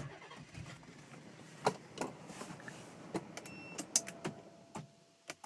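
Scattered light clicks from the 300ZX's push-button start and ignition relays as the button is pressed again with the engine off, with a short faint beep about three and a half seconds in.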